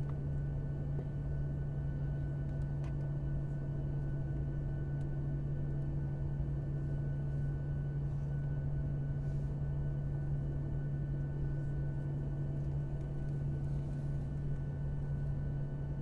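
Steady drone of an airliner's cabin noise, a strong low hum with several fainter steady tones above it and no change throughout.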